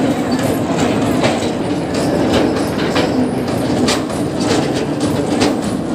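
Narrow-gauge sugar-railway passenger cars rolling over a steel girder bridge: a steady rumble of wheels on rails, with clacks about twice a second as the wheels cross rail joints.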